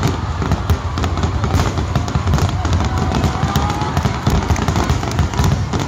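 Fireworks exploding overhead: a dense, continuous barrage of crackles and sharp reports over deep low thumps.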